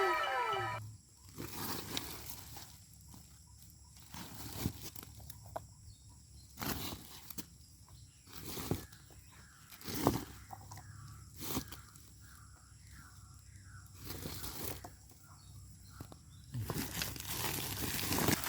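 Rustling and crackling of leafy gourd vines, with a few sharp snaps a second or two apart, as small bottle gourds are picked by hand.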